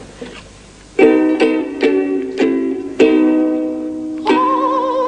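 Ukulele strumming a short run of chords in a loose rhythm, starting about a second in. The last chord, near the end, is left ringing under a wavering held note.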